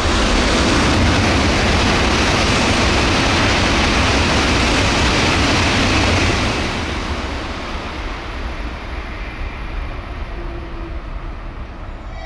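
Shinkansen bullet train passing straight through the station at high speed, up to 300 km/h: a loud rushing noise that builds at the start, holds for about six seconds, then fades away.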